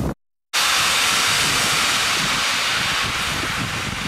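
Loud steady hiss of steam escaping from a standing steam locomotive. It cuts in suddenly after a moment's silence near the start and eases slightly toward the end.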